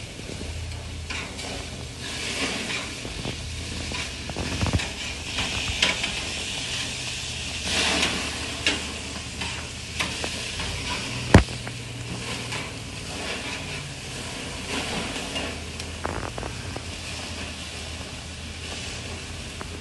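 Ground-beef hamburger patties sizzling over open flame on a grill, with scattered clicks and scrapes of a metal spatula on the grate and one sharp click about halfway through.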